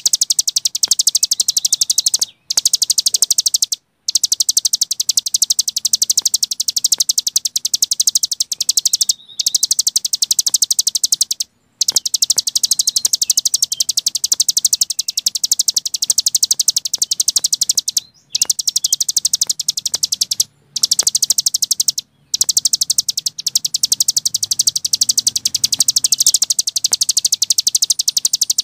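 Cici gunung songbird singing a fast, continuous, high-pitched rattling trill (the 'ngebren' style), broken by a handful of brief pauses.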